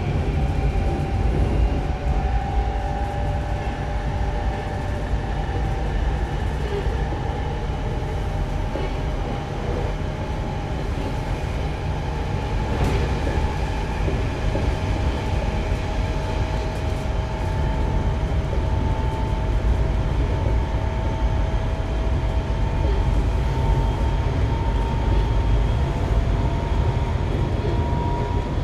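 Semboku Rapid Railway 5000 series electric train with Hitachi GTO-VVVF control, heard from inside the car while running between stations. Under a steady low rumble of wheels on rail, whining motor tones climb slowly in pitch as the train gathers speed. A single sharp click comes about halfway through.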